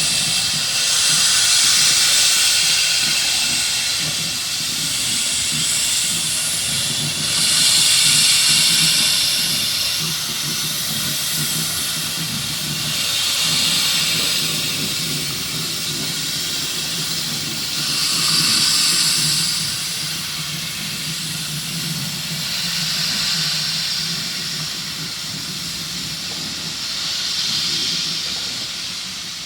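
GWR Grange class steam locomotive blowing off steam with a continuous loud hiss. The hiss swells about every five seconds over a steady low rumble.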